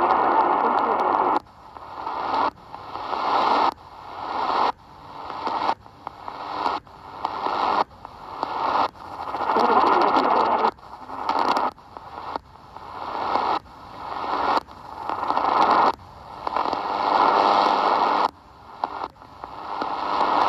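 XHDATA D-808 portable radio tuning across the medium-wave band: roughly once a second the sound cuts off sharply and comes back as static and hiss that swells in loudness, with snatches of broadcast audio between the steps.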